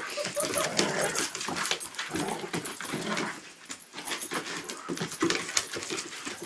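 Dogs play-fighting: dog vocal sounds mixed with scuffling and clicking of paws on wooden deck boards.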